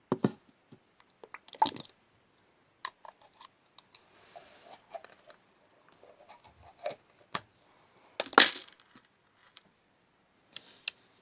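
Slime-making supplies being handled close to the microphone: irregular clicks, taps and short crackles, with a louder crackle about eight seconds in.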